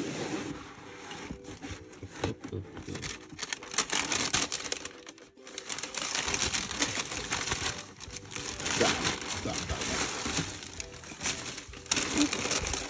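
Tissue paper rustling and crinkling as hands pull it open inside a shoebox and lift out a sneaker. It comes in uneven bursts with a short lull about five seconds in.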